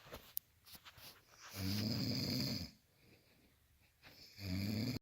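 Snoring: a long rattling snore about two seconds in, and another starting near the end, with quiet breathing between.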